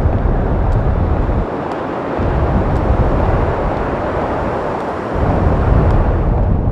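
Loud, steady rumbling roar of noise from the show's soundtrack, swelling and dipping slightly, then cutting off suddenly at the end.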